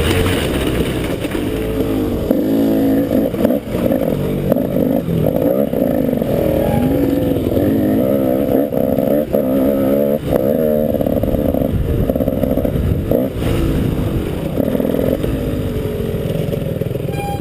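KTM 200 XC-W's two-stroke single-cylinder engine revving up and down as the bike is ridden hard over a dirt track, its pitch rising and falling with the throttle. A few sharp knocks cut through, and the engine eases off near the end.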